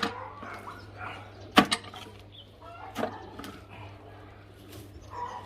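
Three sharp knocks about a second and a half apart, with faint animal calls between them, typical of chickens.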